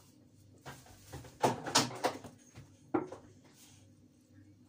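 A few short slaps and knocks as a hand pats seasoning into raw fish fillets on a ceramic plate. There is a quick run of several loud ones about a second and a half in, and a single one near three seconds.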